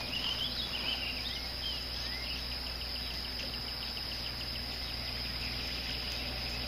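Early-morning outdoor ambience: a steady high-pitched insect chorus, with a few short bird chirps in the first couple of seconds and a faint low hum underneath.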